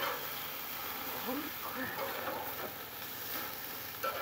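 Hamburger patties sizzling on a grill, a steady hiss, with a sharp click at the start and another near the end.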